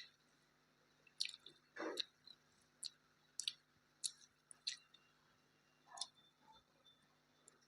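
Faint mouth sounds of a person eating a meal: soft, wet chewing clicks and lip smacks at irregular intervals, with one longer, lower squelch about two seconds in.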